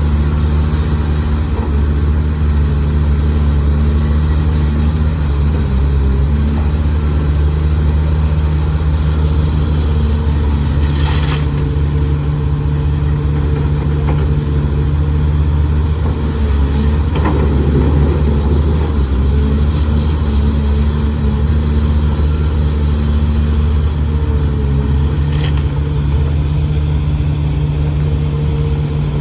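Excavator engine running steadily at a constant speed, with a sharp metallic clank about eleven seconds in and another later on.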